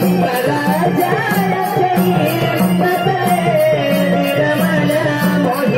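Live naman folk-theatre music: a two-headed barrel drum keeps a steady beat about twice a second, with small metal percussion jingling in time, under a sustained melody that wavers and slides downward in the middle.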